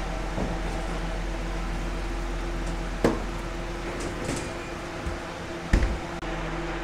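Metal baking trays being pulled out of a stainless-steel deck oven over a steady machine hum, with a sharp metal clank about three seconds in. Near the end the oven door is shut with a heavy thump.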